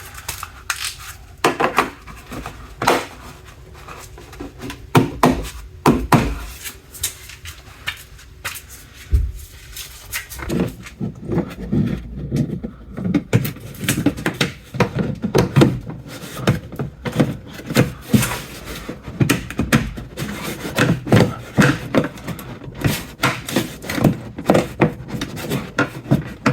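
Plastic car trim being handled and pressed back into place: irregular knocks, clicks and rubbing as panels and clips are pushed home. The knocks come more often after about ten seconds.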